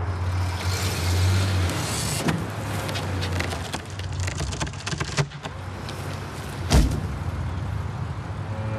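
Felled elm trunk cracking and splintering as it gives way, a run of sharp snaps over several seconds, then one heavy thud as it hits the ground about seven seconds in. A steady engine hum runs under the first second and a half.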